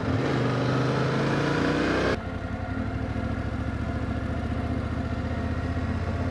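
Yamaha Ténéré 700 parallel-twin engine accelerating with a rising pitch under wind noise on the microphone. About two seconds in, the wind noise cuts off and the engine settles to a steady low putter as the bike rolls slowly.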